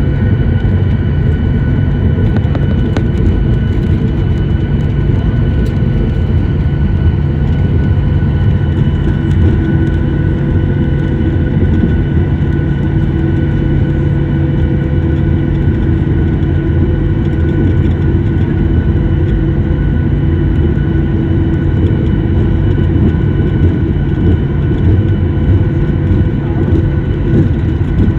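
Steady cabin noise inside a Boeing 737-800 taxiing after landing: the CFM56 jet engines and airflow make an even low rumble with a few steady whining tones above it.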